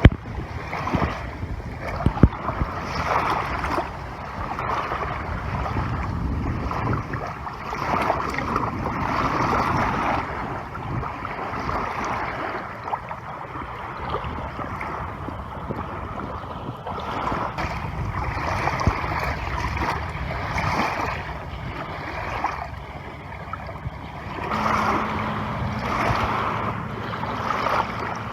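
Lakeshore ambience: wind gusting over the microphone and small waves lapping, swelling and fading every second or two, with a few faint clicks.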